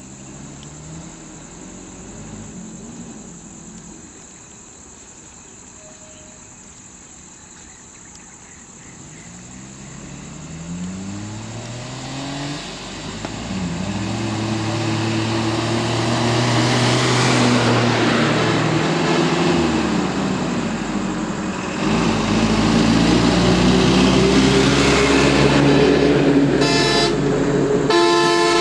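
Road vehicle engines draw near and run close by, growing louder from about ten seconds in, with the engine pitch rising and falling as they slow. A heavier engine rumble comes in about two-thirds of the way through as a bus pulls up close. Two short vehicle-horn toots sound near the end, over a steady high insect drone.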